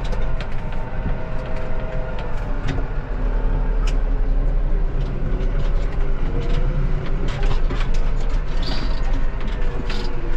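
Tractor engine running, heard from inside the cab while the tractor drives slowly. Frequent light clicks and knocks sound over the steady engine note.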